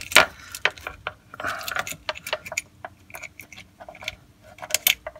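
Metal chain of a chain-type oil filter wrench clinking and rattling against the oil filter as it is worked around the filter, in many irregular sharp clicks with a few short scrapes.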